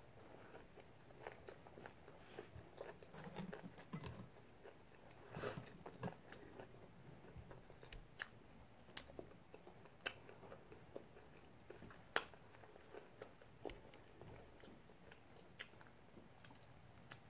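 Faint chewing of a soft flour-tortilla taco: quiet wet mouth sounds with small sharp clicks about once a second.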